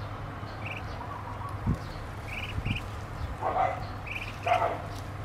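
Ducklings peeping: short high chirps in quick little clusters, several times. Two louder, lower animal calls come about three and a half and four and a half seconds in, with a couple of dull knocks between.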